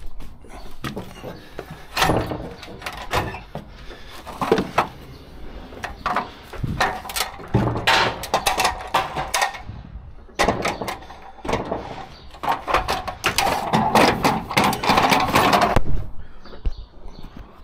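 Irregular metallic clanks, knocks and rattles as the steel cages of IBC tote tanks, their load strap and the trailer's side fittings are handled during unloading. There is a longer stretch of scraping and rustling toward the end.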